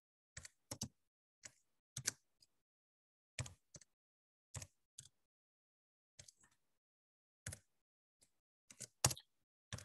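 Computer keyboard keys being typed slowly and unevenly: faint separate clicks with short pauses between them.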